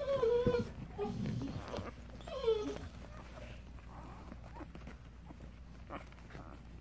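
Newborn puppies squealing: two short, high cries, one right at the start and a second, rising then falling, about two and a half seconds in.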